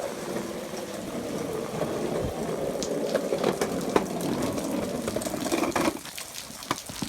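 Water splashing and rushing steadily as something is ridden through a wet patch in the rain, with scattered small clicks and knocks; it eases off about six seconds in.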